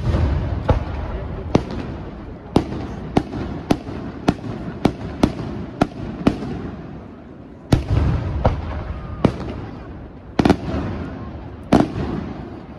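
Aerial firework shells bursting in quick succession, a sharp bang every half second to a second with a low rolling rumble in between. The loudest bursts come at the very start and again near the end.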